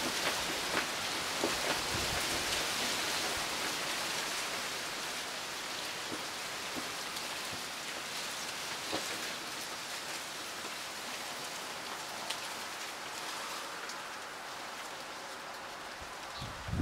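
Wind rustling through trees, palm fronds and bamboo: a steady hiss sprinkled with many small ticks and patters, easing slightly toward the end.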